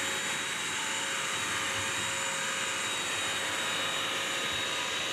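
BISSELL Crosswave wet/dry vacuum running steadily as it wet-scrubs a sealed hardwood floor: an even rushing noise from the suction motor and brush roll, with a constant high whine.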